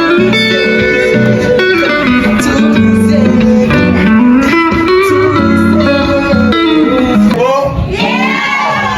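Music: a song led by guitar, with melodic lines that bend in pitch and a rising glide near the end.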